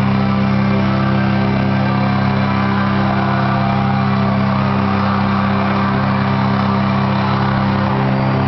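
Live rock band's amplified guitars and bass holding one steady low chord as the song ends, with the crowd cheering and shouting over it.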